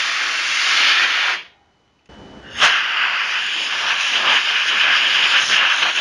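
Compressed air blasting from a blow gun to blow out an air compressor's foam sponge intake filter. It gives a loud, steady hiss that stops about a second and a half in. After a short break a second blast starts about two and a half seconds in.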